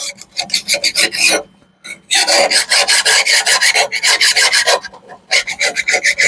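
Fast hand scraping strokes on a steel lawnmower blade held in a vise, working dried grass off it, at about five or six strokes a second with two short pauses.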